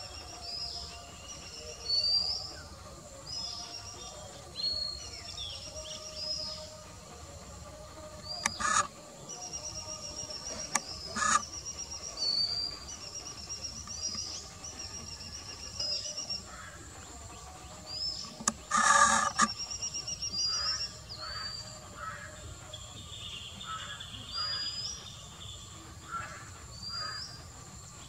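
Birds chirping and singing: a steady run of short, high whistled notes with up-turned ends, repeated over and over. Two brief loud harsh sounds come a little under halfway, and a longer, louder one about two-thirds of the way through.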